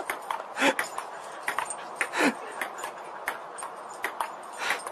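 An animal whining: two short cries that fall in pitch, about a second and a half apart, over scattered sharp clicks and knocks.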